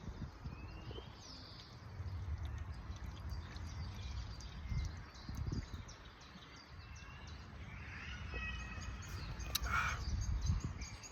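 Outdoor ambience: birds chirping now and then over a steady low rumble, with one short click near the end.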